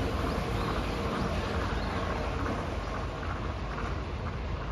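Outdoor city street ambience: a steady wash of distant traffic noise with a low rumble of wind on the microphone.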